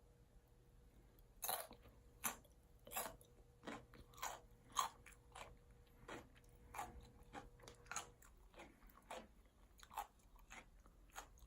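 Close-miked chewing of yangjangpi: faint, crisp crunching bites, about a dozen of them at an uneven, roughly half-second pace.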